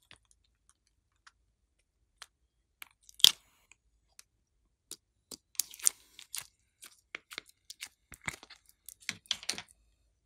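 Slime being worked by hand, giving sticky clicks and pops: a few scattered at first, one sharp louder click about three seconds in, then a dense run of crackling pops from about halfway on.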